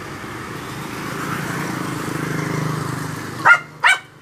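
A small dog gives two sharp yips close together near the end, over a low rumble that swells and fades in the middle.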